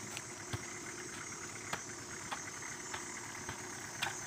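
Hoe blades striking and digging into wet clay soil, a handful of sharp, irregular chops, over a truck engine idling steadily.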